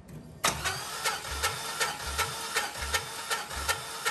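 Starter motor cranking a cold 4.8-litre LS V8 with the throttle held wide open, kicking in suddenly about half a second in and turning the engine over in a steady, even rhythm with a low beat just under twice a second. The engine is being cranked for a compression test; the gauged cylinder builds to just under 150 psi.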